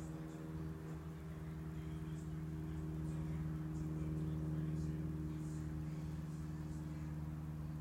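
Steady low mechanical hum, such as a household appliance or fan motor, holding one pitch with a few faint high ticks over it.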